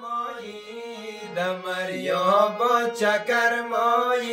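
A voice singing a slow song with long, held notes that bend smoothly in pitch.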